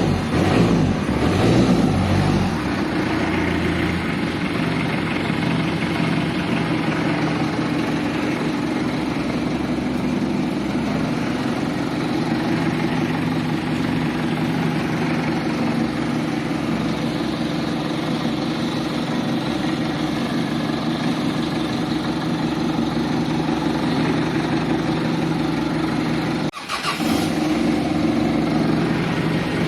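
Mitsubishi L300 engine starting, running rough for the first couple of seconds and then settling into a steady run. Near the end it breaks off for a moment and comes straight back.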